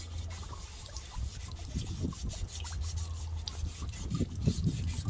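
400-grit wet sandpaper rubbing back and forth on a metal espresso machine panel with a little water, removing loose old paint; the scraping strokes come in a rough rhythm that grows stronger from about two seconds in, over a steady low hum.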